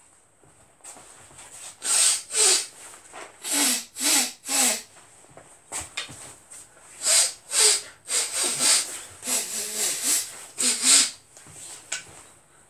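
A man making a series of short, forceful breathy hisses and huffs, about a dozen in two runs with a pause between.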